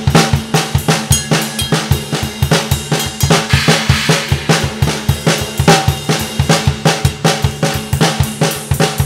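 Pearl Vision Birch five-piece drum kit with Zildjian ZBT cymbals played in a steady groove: a quick, even run of kick, snare and tom hits, about four or five a second, with the drums ringing on under them. A cymbal wash swells up about three and a half seconds in.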